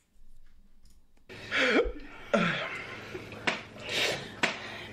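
People eating ramen noodles from metal bowls with chopsticks: breathy noodle slurping and eating noises after a quiet first second, with short vocal sounds. Two sharp clicks of chopsticks against the bowls come near the end.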